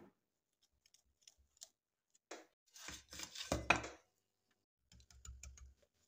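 A knife scrapes faintly along the sides of a tray of set sesame halwa to loosen it. The tray is then turned over onto a ceramic plate with a clatter about three and a half seconds in. Near the end comes a quick run of light taps on the upturned tray to release the block.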